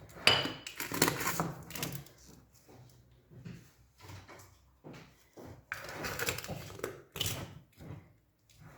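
Lids being put on jars and screwed shut by hand: a string of small clicks, knocks and scrapes, busiest in the first two seconds, then sparser, with a sharper knock near the end.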